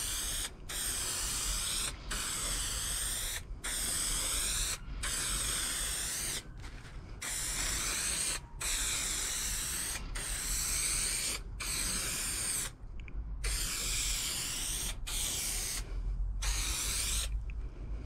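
Aerosol spray adhesive can hissing in about a dozen bursts of a second or so each, with short pauses between, as glue is sprayed onto a plywood panel ready for carpeting.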